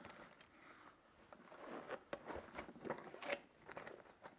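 Faint rustling and scattered soft clicks of tools and a fabric pouch being handled and lifted out of a soft-sided gear bag.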